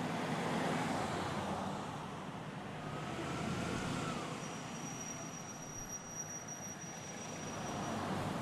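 Hearses driving past one after another, their tyre and engine noise swelling and fading as each goes by.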